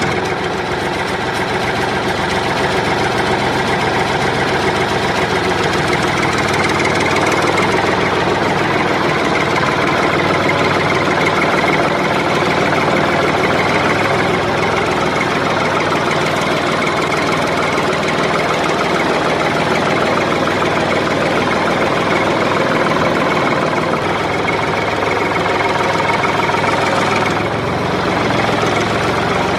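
A heavy engine idling steadily at an even level, dipping briefly near the end.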